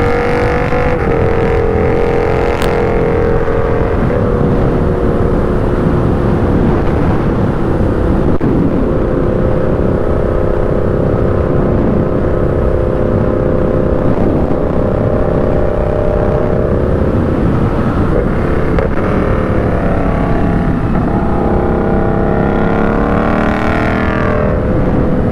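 Yamaha MT-07 parallel-twin engine running at a steady cruise, heard from the rider's position with dense wind and road rush. Over the last several seconds the engine note shifts up and down in pitch as the speed changes.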